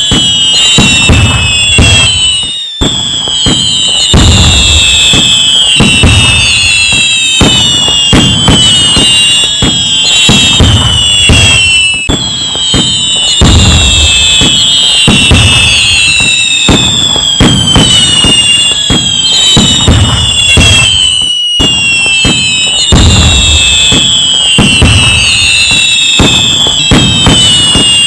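Loud continuous fireworks barrage: many overlapping whistling fireworks, each whistle falling in pitch, over dense crackling and low booms. It breaks off for an instant twice.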